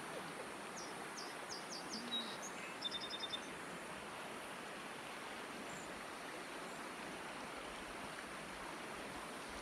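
Shallow mountain river running over stones, a steady rush of water. A bird gives a few short high chirps about a second in, then a quick run of high notes about three seconds in.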